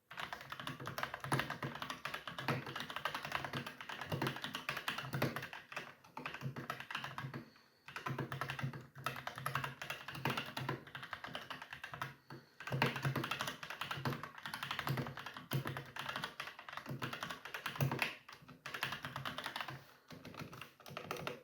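Typing on an NBX KB3000CH plastic-cased mechanical keyboard with Jixian Red linear switches: a rapid, continuous run of keystroke clacks with a few short pauses.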